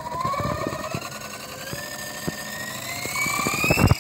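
Feilun FX070C RC helicopter's electric motor and main rotor spooling up for takeoff: a whine rising steadily in pitch, with scattered sharp clicks and a few loud knocks near the end.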